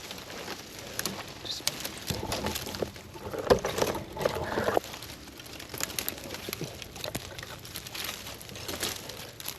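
Brush and twigs rustling and snapping in quick irregular clicks as someone pushes through undergrowth, with a short low voice-like sound about two to five seconds in.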